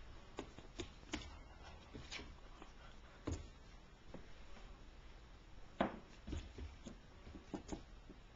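Faint, irregular taps and scuffs of a puppy's paws and claws on a hardwood floor, with a couple of sharper knocks about three and six seconds in.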